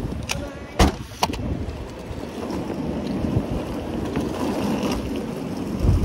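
Steady rumble of a moving vehicle, with two sharp knocks about a second in.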